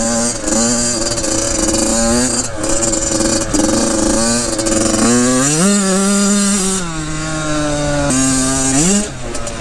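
Dirt bike engine revving up and down as it is ridden over a run of whoops (closely spaced trail bumps). The revs climb and hold higher about halfway through, drop, then rise again near the end, with a hiss of wind over the top.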